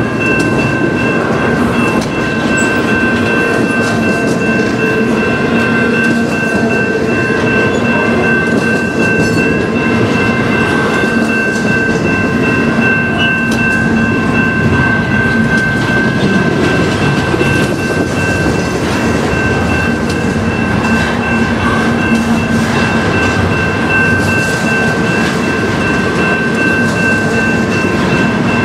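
Double-stack intermodal train's loaded container well cars rolling past: a steady rumble and clatter of steel wheels on rail. A level-crossing bell rings steadily over it.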